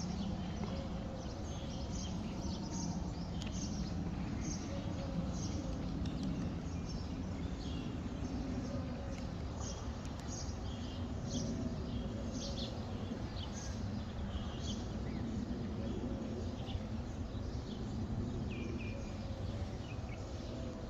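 Many small birds chirping in quick short calls, over a steady low rumble of background noise.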